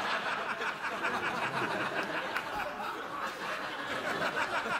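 A studio audience laughing together, a steady wave of many voices that holds for several seconds and dies away just as the host speaks again.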